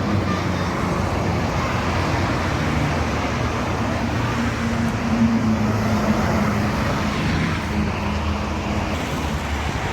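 Steady highway traffic: vehicles passing at speed with tyre and engine noise, and a low engine hum that grows stronger in the middle as a heavy vehicle goes by. No horn sounds.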